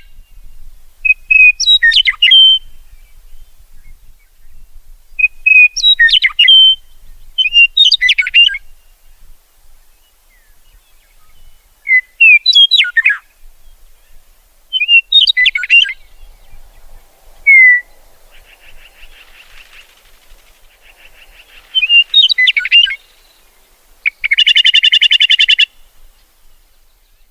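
A lark singing in short, separate phrases of quick chirping and whistled notes, one every couple of seconds, with a loud buzzy trill near the end.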